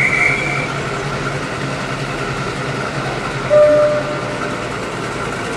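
BR Class 52 'Western' diesel-hydraulic locomotive, with twin Maybach engines, running steadily as it pulls its train out of a station. A short high whistle sounds at the very start, and a brief horn note, the loudest sound, comes about three and a half seconds in.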